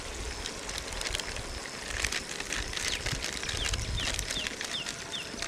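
Wood fire crackling with scattered sharp pops. From about three seconds in, a bird calls a quick series of short high falling whistles, about three a second.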